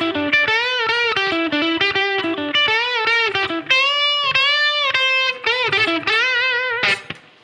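Single-coil Fender Stratocaster electric guitar through an amp playing a bluesy single-note lick, with string bends and vibrato on held notes. The playing stops shortly before the end, leaving the faint hiss typical of single-coil pickups.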